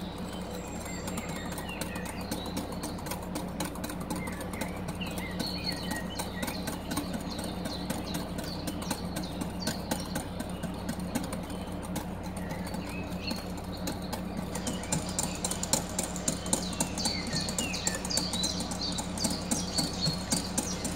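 Wire whisk beating egg yolks in a glass bowl, its wires ticking rapidly against the glass, while hot milk is drizzled in to temper the yolks. The whisking gets louder and quicker about fifteen seconds in, over a steady low hum.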